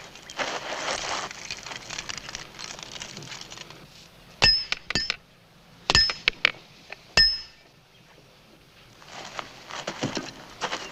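A hammer strikes an iron leg shackle three times, about a second and a half apart. Each blow rings with a high metallic tone and is followed by a few lighter clinks. Before and after the blows, chains clink and rustle.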